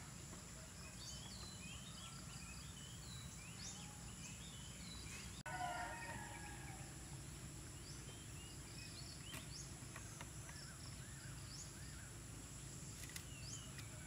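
Small birds chirping with many short rising calls over a steady high-pitched insect drone and a low steady hum; a short louder call about five and a half seconds in.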